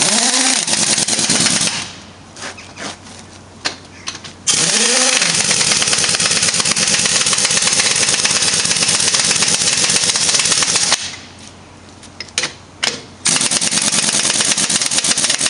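Pneumatic impact wrench hammering on the wheel nuts of a truck wheel. It runs in three long bursts, the middle one about six seconds long, with short pauses between.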